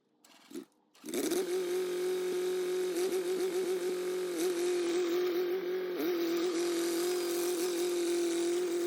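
Small vintage bulldozer's gasoline engine running steadily at working speed, starting about a second in, its pitch sagging briefly a few times as it takes load.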